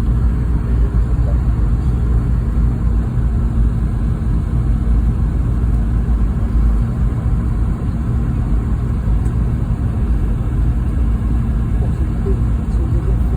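Steady cabin noise inside a Boeing 717-200: the rear-mounted Rolls-Royce BR715 turbofans and the airflow make a loud low rumble with a steady hum.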